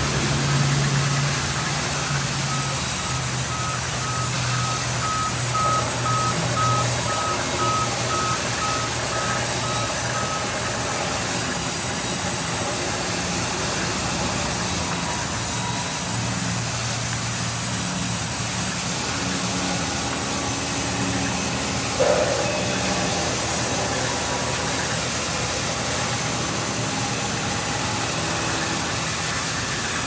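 Sawmill band saws and machinery running steadily with a low hum, as a log is fed into the headrig. A regular string of short electronic beeps sounds from a couple of seconds in until about a third of the way through, and a single sharp knock comes about two-thirds of the way through.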